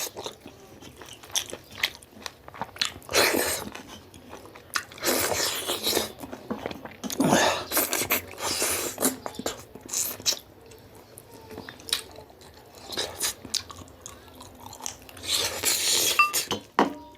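Close-up chewing and biting of a local rooster's leg, meat and bone, with crunching in irregular bursts.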